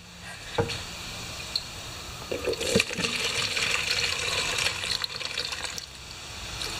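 Methyl hydrate rinse pouring out of a Pioneer Partner 500 chainsaw's fuel tank into a plastic measuring cup. The stream is heavier for a few seconds in the middle and weakens near the end, with a few light knocks.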